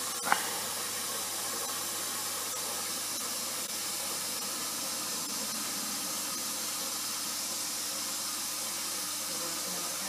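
Zanussi 1200 6 kg washing machine taking in water during a test run, a steady hiss of water running in. A single short click comes just after the start.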